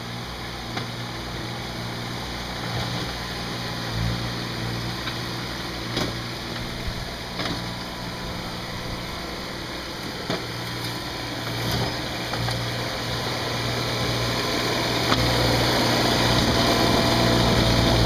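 Ditch Witch SK650 mini skid steer's engine running steadily, with a few short sharp knocks along the way; it grows louder near the end as the machine is close up.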